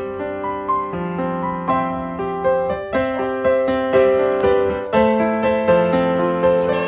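Background music: a piano melody over chords, in a gentle steady rhythm.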